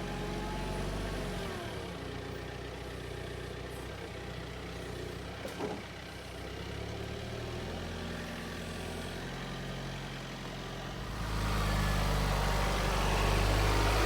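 John Deere 4044R compact tractor's diesel engine running, its pitch shifting down and up a few times as the engine speed changes. About eleven seconds in, the sound grows louder and rougher.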